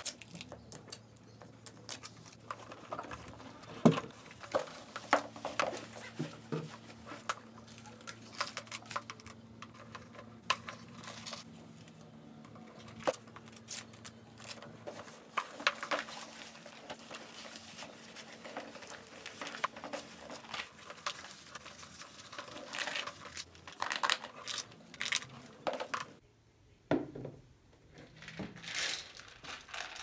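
Plastic pantry storage canisters and food packaging being handled on a countertop: irregular clicks and knocks of lids and containers, with some crinkling.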